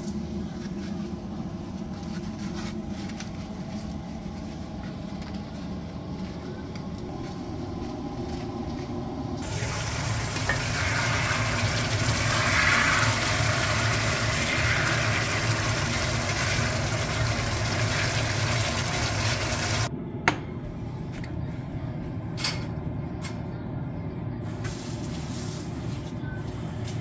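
Meat frying in a pan while it is stirred with a spatula: a loud, steady sizzling hiss over a low hum that starts and cuts off abruptly. Before and after it there is only a quieter low hum with a few light clicks.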